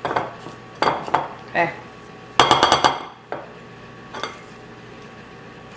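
A cookie scooper knocking and scraping against a glass mixing bowl of cookie dough as the sides are scraped down: a few short clinks and knocks, with a louder clattering rattle about two and a half seconds in.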